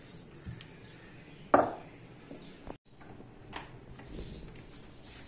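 Wooden rolling pin rolling dough out on a marble counter, with a sharp knock about a second and a half in and a fainter knock later.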